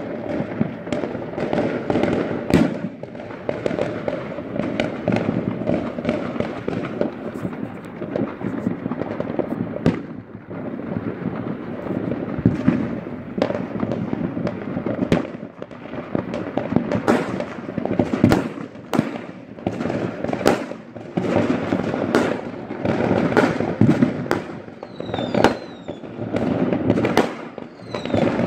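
Many fireworks going off at once across the neighbourhood: a continuous rumble of distant bangs and crackling, with sharper, louder bangs scattered throughout. Near the end come a few short falling whistles.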